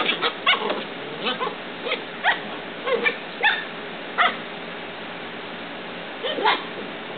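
Seven-week-old poodle puppies yipping, whimpering and giving small barks as they play-wrestle, in a quick string of short high calls for about four seconds, a pause, then a couple more near the end, over a steady hiss.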